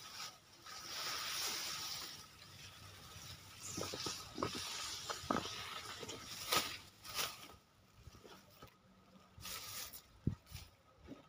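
Elephant grass stalks being cut and gathered by hand: a dry rustle of leaves with several short sharp snaps, dying down after about seven seconds.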